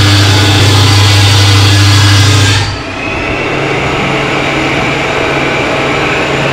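Table saw cutting through a sheet of plywood, the blade finishing the cut about two and a half seconds in. The saw then keeps running with no load, a steadier, quieter hum.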